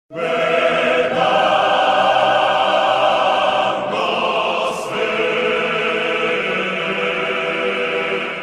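Choral music: a choir holding long sustained chords, with a change in the chord about a second in and a brief shift around four to five seconds in. It fades in at the start and fades out at the end.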